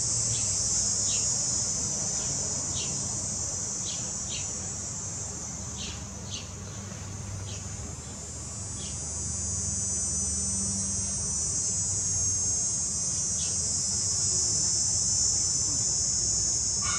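Steady high-pitched chorus of singing insects, a continuous trill, with a few short high chirps scattered through it and a faint low hum underneath.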